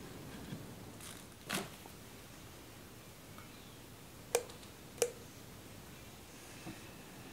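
Metal parts of an 1890s lathe headstock being handled as a gear is fitted onto its shaft: a soft knock, then two sharp metallic clinks less than a second apart, each with a brief ring.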